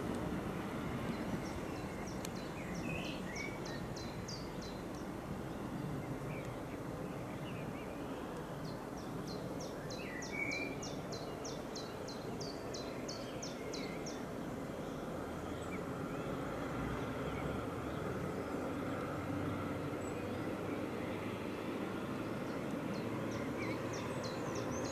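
Diesel regional train engine running at a distance, a steady low rumble. A bird's fast repeated call notes come in three bouts over it.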